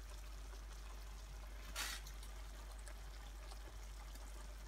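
Tomato sauce simmering in a frying pan, a faint steady bubbling, with one brief wet splat about two seconds in as a handful of cooked spaghetti drops into it.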